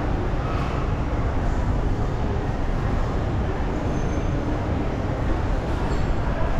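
Steady background rumble, heaviest in the bass, holding an even level with no distinct single event.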